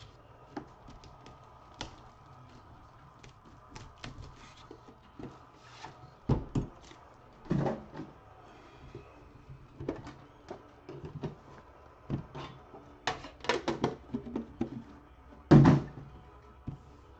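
Trading-card boxes being handled and set down on a desk: scattered clicks and rustles, several knocks in the middle, and a loudest thump near the end.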